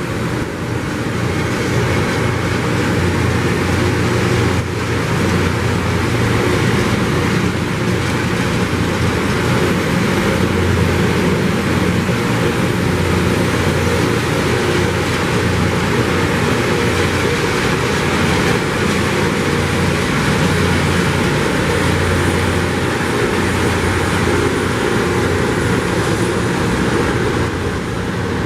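Loram rail grinding train at work, its rotating grinding stones on the rail giving a loud, steady roar with a deep rumble underneath.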